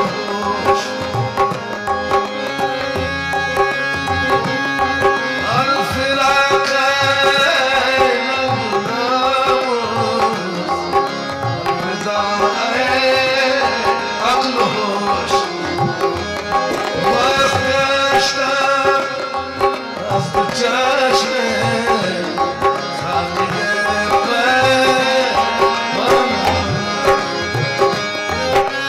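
Ghazal music: a tabla playing a steady rhythm and a harmonium holding chords and melody, with a man singing long, ornamented phrases over them at intervals.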